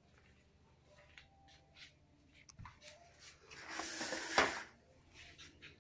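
Two puppies tussling over a piece of biscuit: light scratching and scuffling, with a louder, noisier scuffle about four seconds in.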